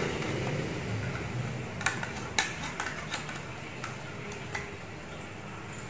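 A cluster of light, sharp clicks and taps, about ten of them, from small kitchen items being handled off to the side; they start about two seconds in and end just before the fifth second, over a steady background hiss.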